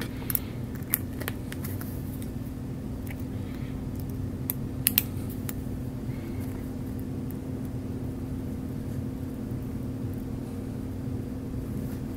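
Steady low electrical-type hum, with a scattering of small sharp clicks from metal surgical instruments, a needle driver and forceps, as suture is handled.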